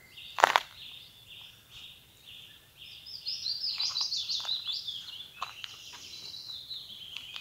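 Songbirds singing in woodland: a run of evenly repeated high notes, then a faster, higher twittering phrase from about three seconds in. A single sharp knock about half a second in.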